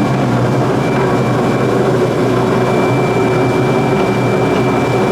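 9-inch Timesaver wet abrasive belt grinder running: its blower motor and grinding-belt drive give a steady hum under even noise, with a thin, high, constant whine.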